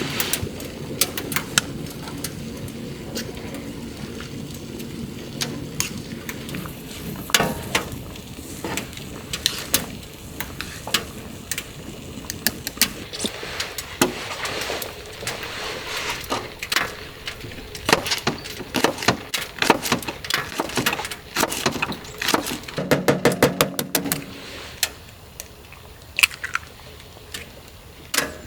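Steady rain, with many sharp clinks and taps of small objects being handled, thickest in the second half, and a short low hum about 23 seconds in.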